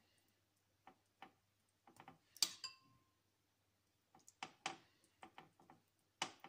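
Long metal ice cream spoon tapping and scraping on ceramic while beaten egg is spread over a slice of white bread: scattered soft taps, with one sharper ringing clink about two and a half seconds in and a run of quick taps near the end.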